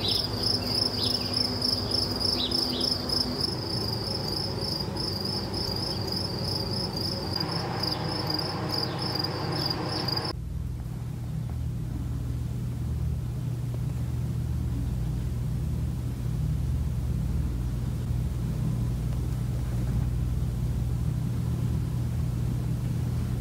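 Crickets chirping in a steady, high, evenly pulsing trill, which cuts off abruptly after about ten seconds. A steady low rumble then carries on alone.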